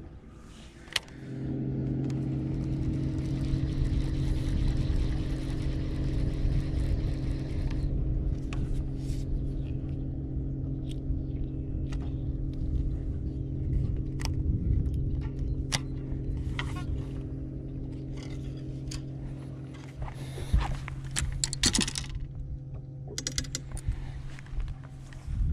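A boat motor comes on with a click about a second in and runs with a steady, even-pitched hum. Scattered clicks and rattles are heard over it, thickest near the end.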